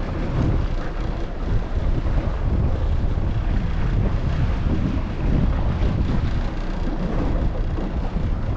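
Strong wind buffeting the microphone in a steady, low rumble, with the sea washing around an open boat offshore.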